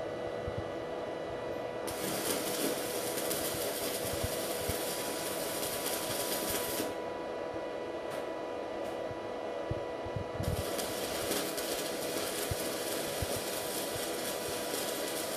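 Electric arc welding with a stick electrode: the arc crackles in two runs of about five seconds each, starting about two seconds in and again about ten seconds in, over a steady hum.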